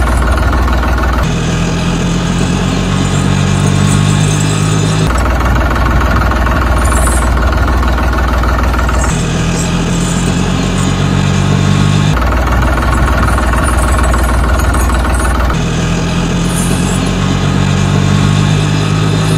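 Engine sound effect laid over toy vehicles, not a real engine. The engine note runs loud and steady and switches abruptly every few seconds between a deep low rumble and a higher-pitched engine tone.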